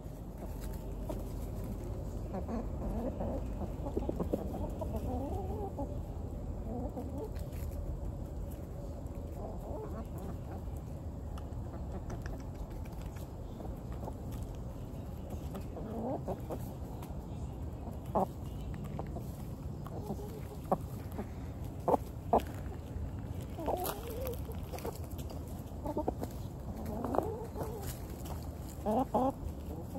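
Chickens clucking and calling to one another in short, broken calls while they forage, with a few sharp taps about two-thirds of the way in.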